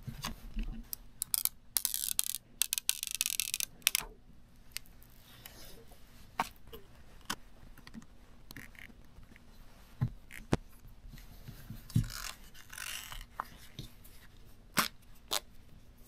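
Hands working iPhone packaging: a loud rasping tear or peel of plastic or paper about two seconds in, a softer one past the middle, and scattered clicks and taps.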